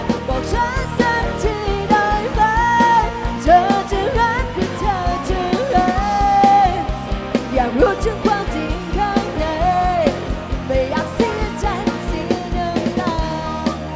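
Live rock band playing: a singer's melody with long held notes over electric guitars and a drum kit keeping a steady beat. Near the end the singing stops and the guitars and drums play on.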